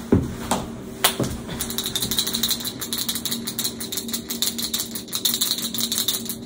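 Oil-based paint marker being shaken, its mixing ball rattling: a few separate clicks at first, then a fast run of clicks, about ten a second, over a steady low hum.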